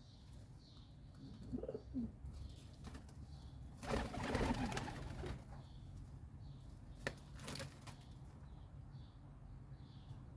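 Feral pigeons cooing, with a loud flurry of flapping wings about four seconds in. Small birds, sparrows, chirp repeatedly throughout.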